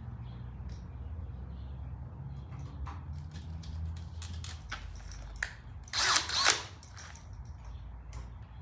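Cordless drill running at low speed for about five seconds, driving a screw, then a brief loud rattle about six seconds in.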